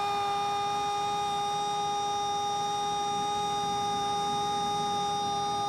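Football commentator's long, drawn-out goal cry, 'gooool', shouted and held on one steady high note.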